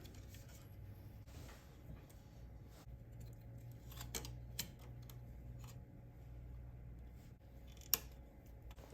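Scattered light clicks and taps of small parts being handled, over a steady low hum; one sharper click stands out near the end.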